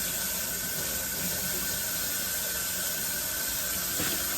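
Kitchen tap running steadily, water splashing over green onions being rinsed in the sink, with a short knock about four seconds in.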